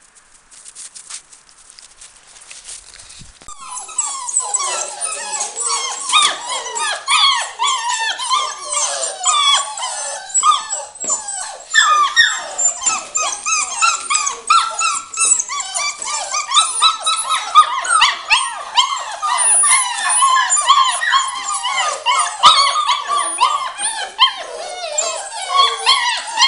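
A litter of seven-week-old Samoyed puppies whining and yelping together: a dense, continuous chorus of overlapping high-pitched calls that rise and fall, starting about three seconds in after a quiet opening.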